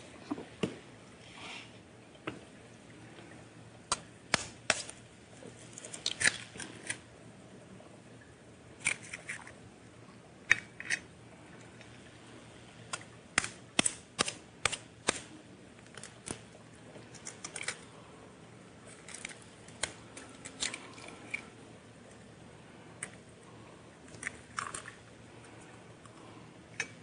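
Small picture frames being handled and set on a wall board: sharp clicks and knocks at irregular intervals, some in quick runs of two or three.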